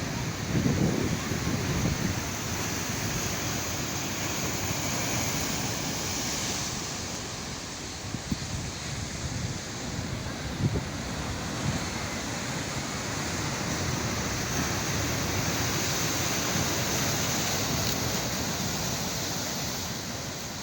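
Sea waves washing on the shore in a steady surf, with wind buffeting the microphone in low rumbles during the first couple of seconds.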